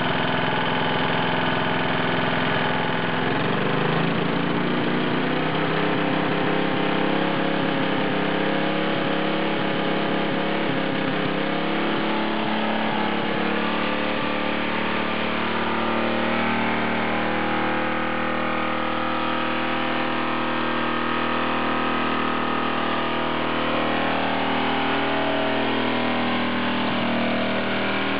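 Turbocharged lawn mower's small engine running. Its speed rises about three seconds in and wavers for several seconds, then holds steady.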